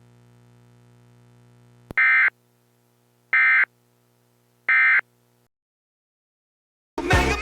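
Three short buzzing bursts of Emergency Alert System end-of-message data tones, each about a third of a second long and about 1.3 s apart, marking the end of the alert. Before them a faint low hum runs and a click sounds; near the end music starts.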